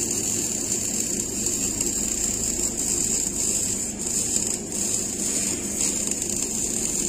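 Electric arc welding on a steel pipe fitting: the arc running steadily with an even, continuous hiss.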